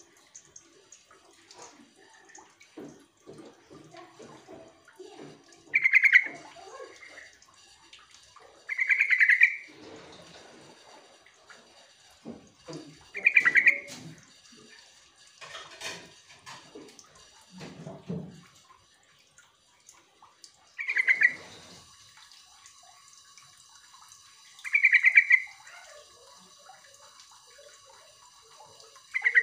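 Yellow-vented bulbul (trucukan) calling: short, loud, rapidly pulsed phrases about half a second long, repeated six times a few seconds apart. This is its call to other birds.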